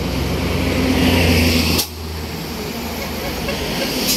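Heavy diesel road traffic, lorries and buses running past with a steady low engine drone. The drone drops off abruptly about two seconds in, leaving quieter traffic noise.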